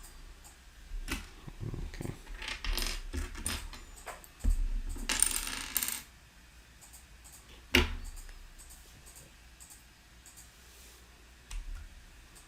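Small plastic building bricks clattering and clicking as a hand sifts through loose pieces. A denser rattling shuffle comes in the middle, then one sharp click.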